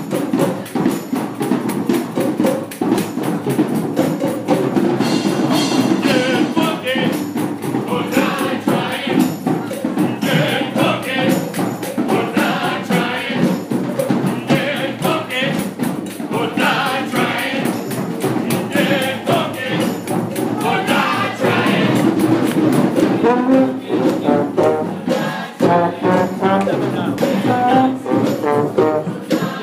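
Brass band playing on the march: sousaphones carrying the bass line under saxophones, with tambourine shaking along. The music goes on without a break.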